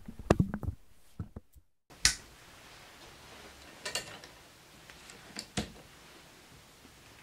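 Handheld microphone handling noise: a handful of sharp clicks and knocks, scattered over about five seconds, against quiet room tone. A brief murmur of voice comes first.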